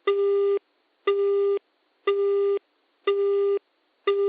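Electronic beeping: a steady-pitched beep about half a second long, repeating once a second, five times.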